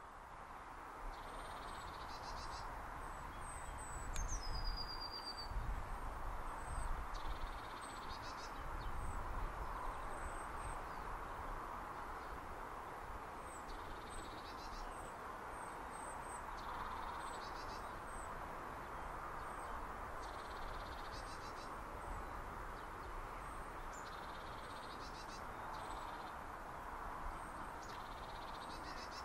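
A small songbird singing: a short, high trilled phrase repeated every three to four seconds, over a steady background hiss.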